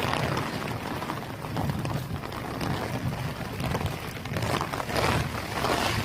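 Heavy rain falling steadily, an even hiss that swells and eases, with a low uneven rumble underneath.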